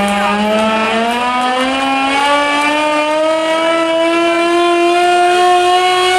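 Hand-cranked siren wailing loudly, one steady tone whose pitch climbs slowly and evenly.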